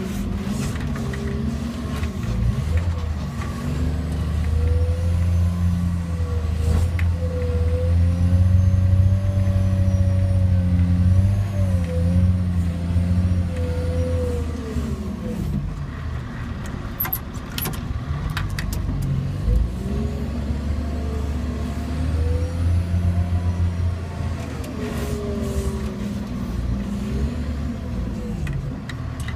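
Diesel engine of a Caterpillar dump truck running under load, heard from inside the cab. It picks up in pitch and loudness a few seconds in, holds, eases off about halfway, then pulls harder again. There are a few short clicks or rattles just after the middle.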